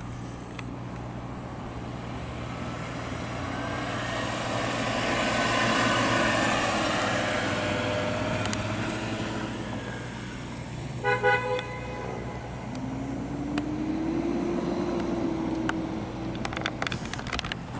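BMW E60 M5 driving past, the sound swelling and fading. About eleven seconds in a car horn gives a few brief toots, and after it an engine note rises and then holds steady.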